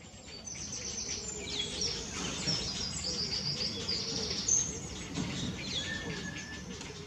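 Several songbirds singing at once, overlapping high whistled phrases and trills, over a low background hum of outdoor noise. It fades in, growing louder over the first couple of seconds.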